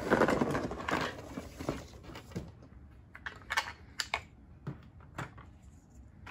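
Rummaging rustle of a cardboard toy box, followed by a series of light clicks and clacks as hard plastic toy pieces, a toy tank and terrain parts, are handled and set down on a table.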